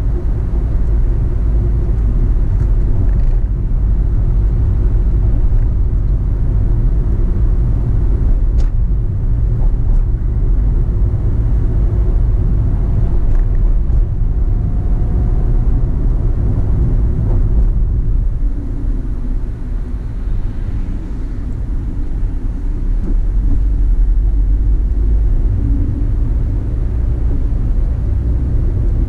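Car on the move: a steady low rumble of engine and road noise, easing off for a few seconds about twenty seconds in.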